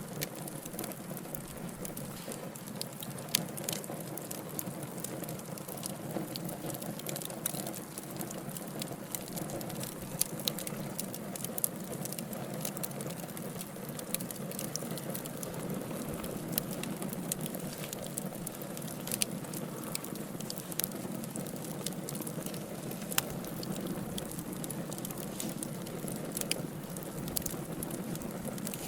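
Wood fire burning: a steady low rush from the flames with frequent irregular crackles and sharp pops from the burning logs.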